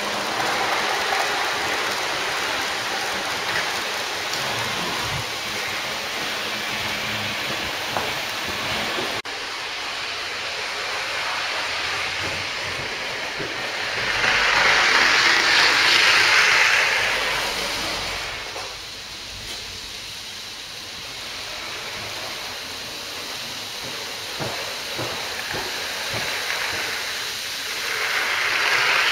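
Model trains running on the layout's track: a steady whirring rattle of wheels on the rails. It swells louder from about fourteen to eighteen seconds in and again near the end as trains pass close.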